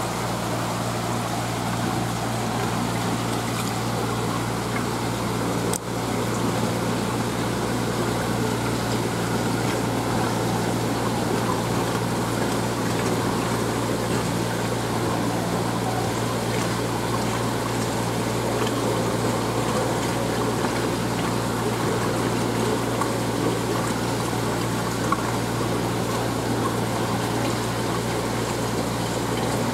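Steady running of a fish holding tank's water pump and flowing water: a constant low hum under an even wash of water noise, with a brief dip about six seconds in.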